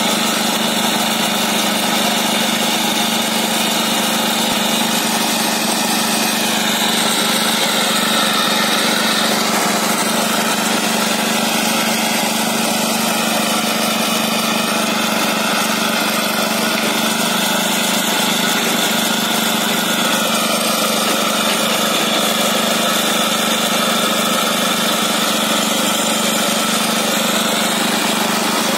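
Engine-driven vibratory plate compactor running steadily as its plate compacts a bed of gravel and quarry dust, a continuous even hum with no breaks.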